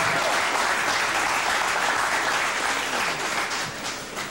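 Crowd applauding steadily, then dying away near the end.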